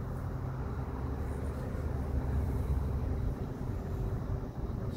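A car driving along a road: a steady low engine and road rumble that swells around two to three seconds in.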